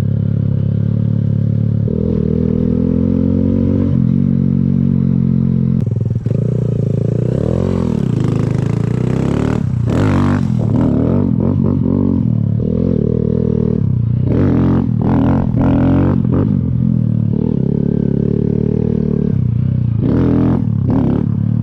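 Kawasaki Z125 motorcycle's small single-cylinder engine running under a rider, its pitch holding and then stepping between gears, then revving up and down in swoops. Several short bursts of rushing noise come in the second half.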